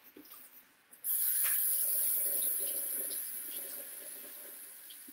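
Kitchen faucet turned on about a second in, water running into the sink as canned chickpeas are rinsed in a strainer, a steady hiss that slowly gets quieter.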